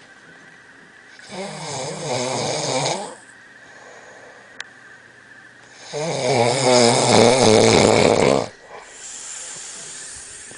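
Snoring: two long snores about four seconds apart, the second longer and louder, with quiet breathing between.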